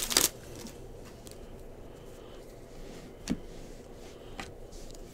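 Plastic wrapper of a baseball card pack crinkling as it comes off, cut short right at the start. Then faint handling of the trading cards: a few soft clicks and slides as cards are thumbed through the stack.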